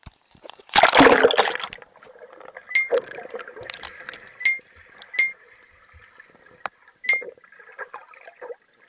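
An action camera plunges into a swimming pool with a loud splash about a second in, then muffled underwater sound with faint bubbling and scattered sharp clicks, some of them ringing.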